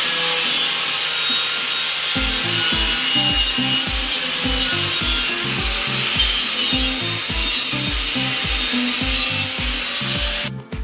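Angle grinder grinding the steel of an old gas bottle: a steady, harsh hiss that cuts off suddenly near the end.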